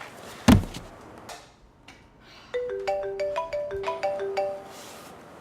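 Mobile phone ringing with a marimba-style ringtone, a quick repeating run of bright mallet-like notes starting about halfway through. A single loud thump comes about half a second in.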